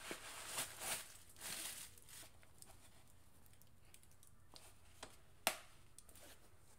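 Soft rustling of a canvas makeup pouch being handled and opened with cotton gloves, then a few sharp little clicks about five seconds in, the last one the loudest.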